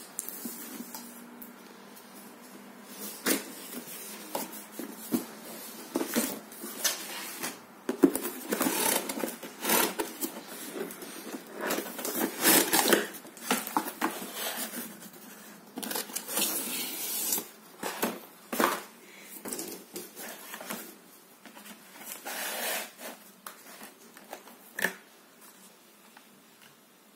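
Cardboard box and packaging being handled and opened: irregular rustling, scraping and knocking of cardboard and plastic, in uneven bursts that die down near the end.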